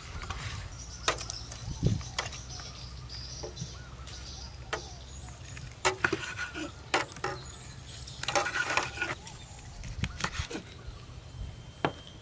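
Kitchen knife cutting cooked pig lung on a wooden cutting board, with irregular knocks of the blade striking the board.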